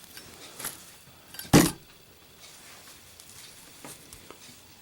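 A lit Zippo lighter dropped in a drop test, landing with one loud knock about a second and a half in. A few faint small clicks and ticks of handling come before and after it.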